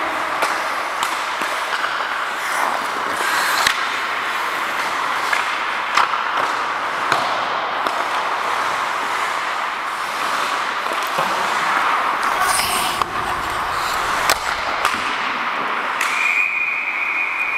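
Ice hockey in play: skate blades scraping the ice and repeated sharp clacks of sticks, puck and boards. A steady high whistle starts near the end.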